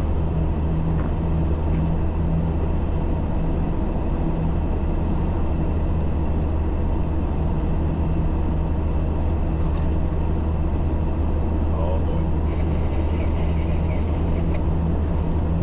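MAN 4x4 truck's diesel engine running steadily on the road, a constant low drone with tyre and road noise.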